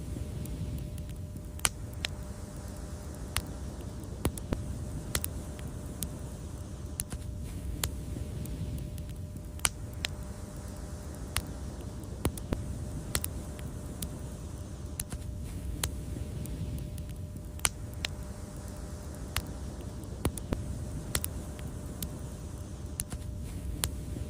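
Wood fire crackling: irregular sharp pops and snaps, often several a second, over a steady low rumble of the burning fire.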